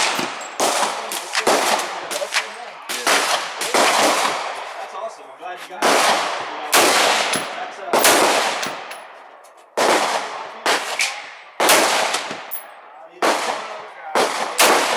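Bushmaster AR-15 semi-automatic rifle firing .223/5.56 mm rounds: a string of roughly fifteen to twenty single shots at an uneven pace, often less than a second apart, each trailing off in a long echo.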